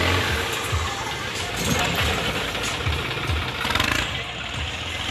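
Diesel tractor engine running under load as the tractor climbs over a heap of earth and bricks.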